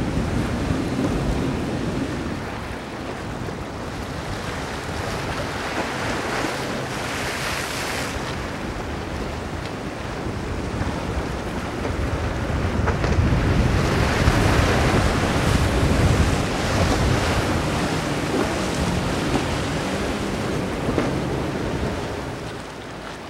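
Glacier Bay power catamaran running through choppy inlet water on its twin outboard engines: engine hum under the rush of waves and wake spray, with wind buffeting the microphone. It grows louder about halfway through as the boat passes.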